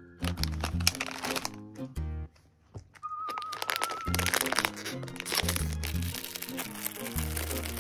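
Background music with a repeating bass line, over the crinkling of a plastic snack bag being handled and cut open with scissors.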